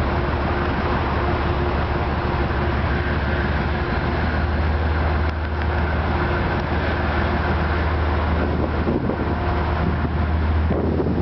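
Diesel locomotive engine running steadily: a low, even drone with a constant hum.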